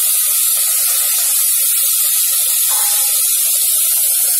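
Freshly washed, chopped French beans sizzling in hot oil and ghee in a pressure cooker, just added: a loud, steady spitting hiss with crackle as the moisture on the beans hits the hot fat and turns to steam.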